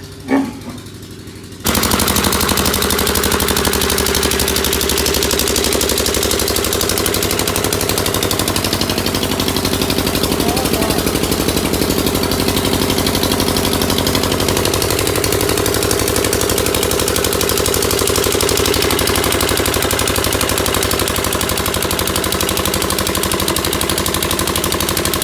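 An engine running loud and close, its rapid firing pulses steady throughout. It jumps abruptly up to full level about two seconds in, after a brief sharp sweep at the very start.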